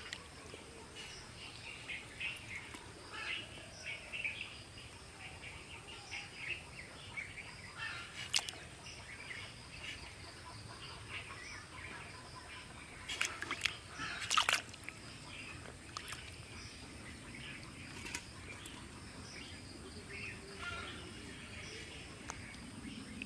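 Small birds chirping and twittering on and off, with a few sharp clicks or knocks, the loudest about two-thirds of the way through.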